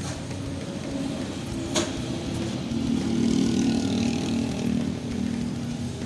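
Arc welding a broken Suzuki Baleno exhaust pipe: a low, steady buzz that grows louder in the middle, with one sharp crack about two seconds in.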